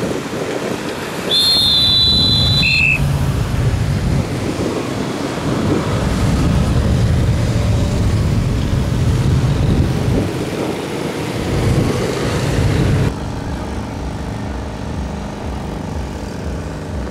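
Road traffic noise of motor vehicles passing, including motorcycles, rumbling and swelling. A short shrill whistle sounds about two seconds in and drops in pitch at its end. After about thirteen seconds the sound becomes quieter, with a steady low hum.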